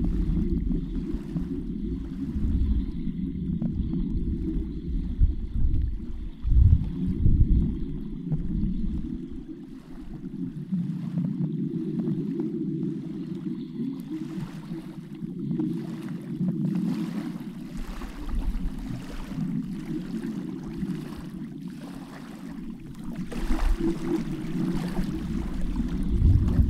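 Underwater ambience: a muffled, low rumble of moving water that swells and eases, with faint scattered clicks.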